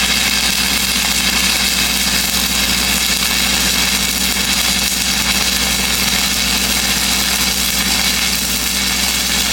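5P+ (E6010) stick electrode burning in a steady arc at 90 amps: a continuous crackling hiss, which the welder calls pretty consistent and very smooth. Under it, the welding machine runs with a steady low hum.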